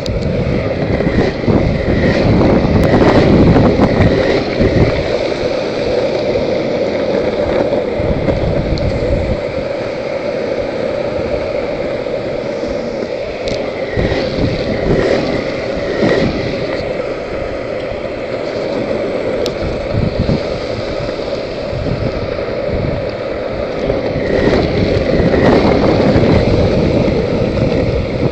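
Skateboard wheels rolling steadily over rough, cracked pavement, a continuous rumble with wind buffeting the microphone, with a few sharp clicks along the way and louder stretches near the start and near the end.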